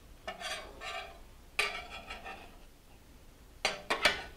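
Metal spatula scraping and clinking against a stovetop griddle as grilled cheese sandwiches are turned, in three short bouts, the last and loudest near the end.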